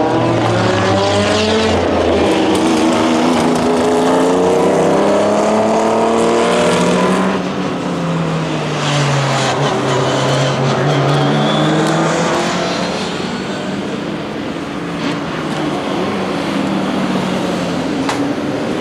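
Historic racing prototype engines, among them Porsche 917 flat-12s, driving hard through a corner one after another, the engine note rising and falling as they lift, change gear and accelerate. About seven seconds in the sound shifts to a different car and is a little quieter, with its pitch dropping and then climbing again as it slows for the corner and powers out.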